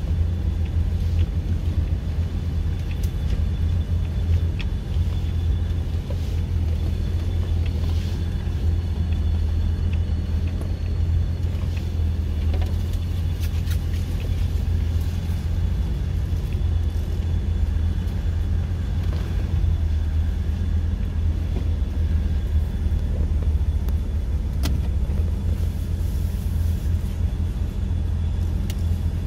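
Off-road vehicle driving on a trail: a steady low engine and road rumble, with a few faint clicks and knocks.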